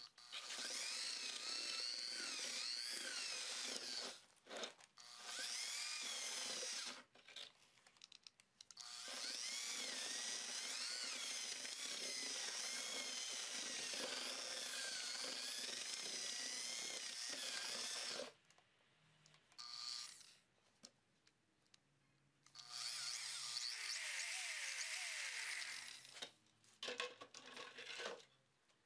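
Power drill with a paddle mixer stirring thinset mortar in a plastic bucket. It runs in several stretches, the longest about nine seconds, stopping dead in between, and its whine wavers up and down in pitch.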